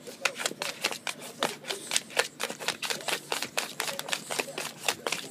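Bullmastiff puppy playing in laundry: rapid, irregular rustling and sharp clicks, several a second.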